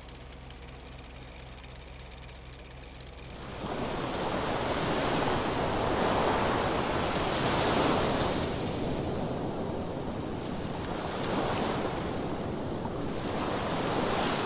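V6 car engine idling with a steady low throb; about three and a half seconds in it gives way to a loud rushing noise that swells and eases several times.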